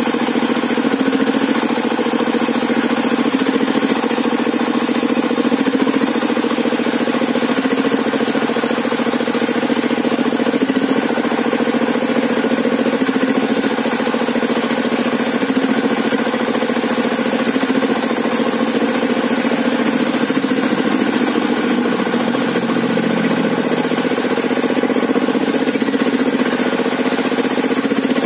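Hand-cranked stationary engine of a sawmill table saw running steadily, its pitch dipping slightly a little past two-thirds of the way through.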